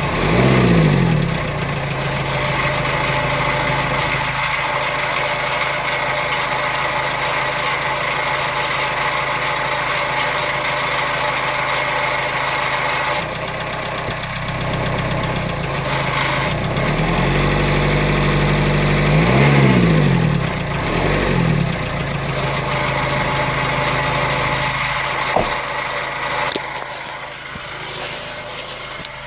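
Renault Kangoo 1.9 dCi four-cylinder turbodiesel idling, revved up and let back down at the very start and again twice about two-thirds of the way in. The engine is making a noise the owner takes for a fault.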